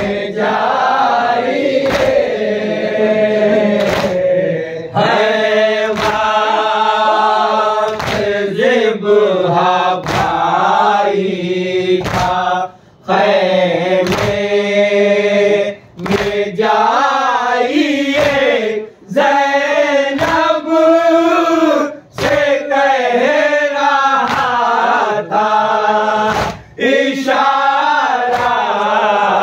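Group of men chanting a noha (Shia mourning lament) in unison, one lead voice with the rest joining, in phrases with short breaks. Under the chant, a steady chest-beating matam comes in sharp slaps about once a second.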